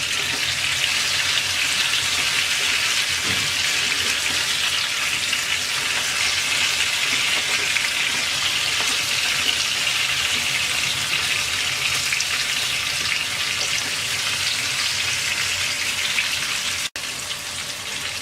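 Spice-coated eggplant quarters shallow-frying in hot oil in a kadai: a steady sizzle. It cuts out for an instant near the end.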